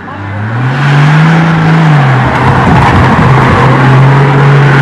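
A 4x4 SUV's engine revving up under load, holding, easing off about two seconds in, then pulling steadily. A loud rush of noise runs over it, strongest in the middle.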